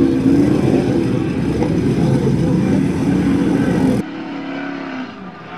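Mud racing truck engine running hard at high revs. About four seconds in, the sound drops to a quieter engine note that falls in pitch.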